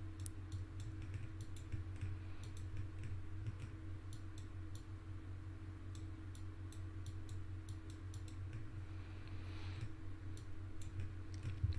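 Faint, irregular clicks of a computer mouse and keyboard, over a steady low electrical hum.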